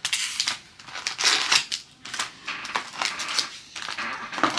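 Foil wrappers of 2023 Panini Mosaic No Huddle football card packs crinkling and rustling in a run of short, irregular bursts as the packs are handled and pulled out of their cardboard box.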